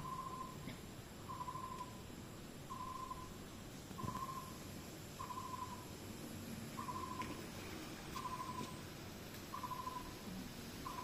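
An animal's call: a short hoot that falls slightly, repeated steadily about once every second and a third.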